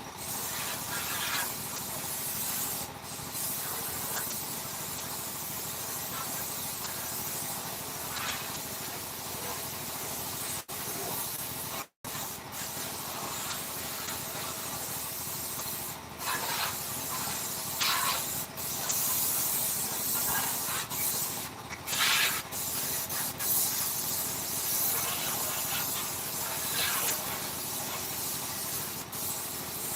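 Steady hissing noise with louder surges in the second half, broken by a brief cut about twelve seconds in.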